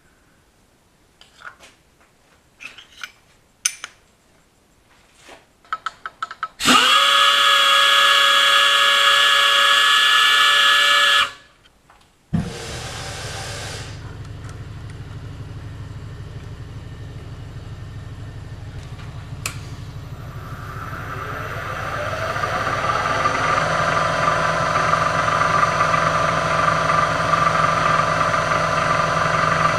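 Light clicks and taps of tool handling, then a loud steady whirring noise for about four seconds. About halfway through a milling machine's spindle motor switches on and runs steadily, then winds up in speed with a rising pitch over a few seconds and holds there, ready to spot-drill.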